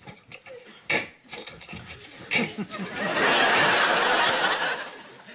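Audience laughter with a few short mouth noises, then a long hiss made with the mouth that lasts nearly two seconds as a vocal sound effect.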